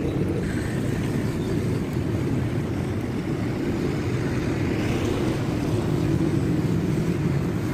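Steady low rumble of city street traffic, with no single vehicle standing out.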